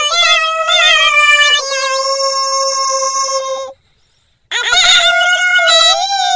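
A child's high voice chanting a Quran recitation (tilawat), holding long ornamented notes with wavering turns. It cuts out for most of a second a little past halfway, then comes back with a rising, wavering phrase.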